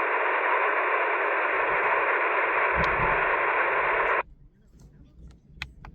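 Steady hiss of FM receiver noise from the speaker of a Yaesu FTX-1F portable transceiver on 2 metres, cutting off abruptly a little over four seconds in as the squelch closes. A faint low rumble and a few light clicks follow.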